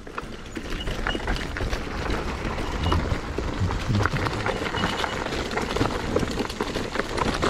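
Zero 10X electric scooter riding over a bumpy dirt trail: tyres rolling over dirt and dry leaves, with a steady stream of short knocks and rattles from the scooter as it goes over bumps.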